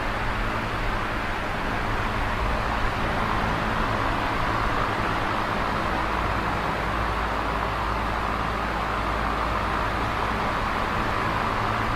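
Large box fan running steadily: an even rushing of air with a low hum underneath, unchanging throughout.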